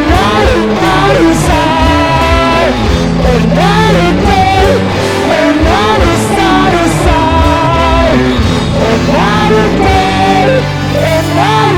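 Live rock band playing, with a singer's voice over electric guitars, bass and drums.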